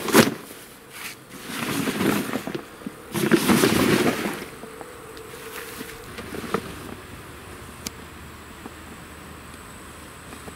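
Fabric hull of an inflatable boat rustling and flapping as it is unrolled and spread out on grass. Three loud surges come in the first four seconds, then quieter handling with a few light clicks.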